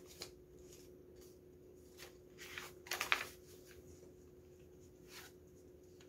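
Faint rustling and sliding of paper postcards being handled, with a few short scrapes about halfway through, over a low steady hum.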